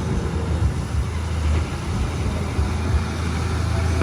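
Bulldozer's diesel engine running steadily, a deep low drone.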